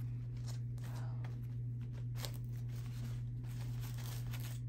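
Soft, intermittent rustling of a fabric drawstring dust bag being handled as its cord is untied and the bag opened, over a steady low hum.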